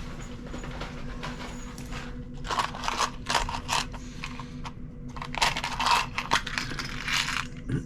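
Small metal pin tips for a multimeter test lead being handled and fitted onto the lead ends: light clicking and rattling in two bursts, over a steady low hum.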